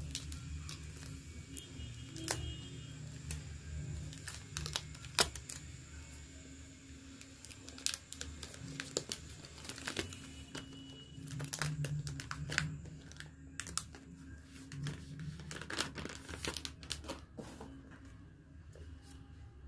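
Clear plastic shrink-wrap being torn and crinkled off a phone's retail box, with irregular sharp crackles and clicks as the wrap and box are handled.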